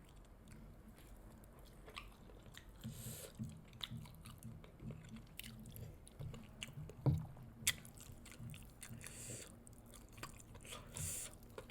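Close-up chewing and biting of fried chicken drumsticks, with irregular soft mouth sounds and small clicks.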